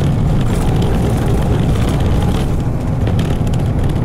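Cabin running sound of a Nissan Diesel Space Runner RM city bus (KK-RM252GSN) under way: its 6.9-litre FE6F diesel engine running steadily with road noise, at a low, even level throughout.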